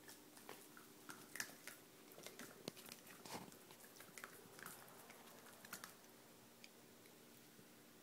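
Miniature pinscher puppy chewing and biting a rubber Kong toy: irregular small clicks and crunches that stop about six seconds in.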